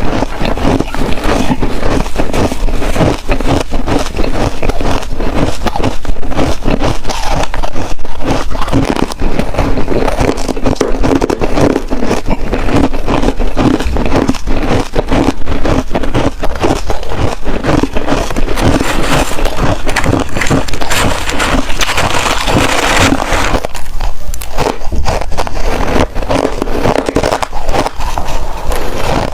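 Hard ice being bitten and chewed: loud, dense, continuous crunching and crackling, with a short pause a few seconds before the end.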